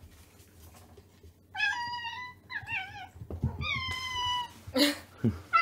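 Domestic cat meowing several times in a row, drawn-out meows about a second apart starting a second and a half in, with a louder short cry near the end.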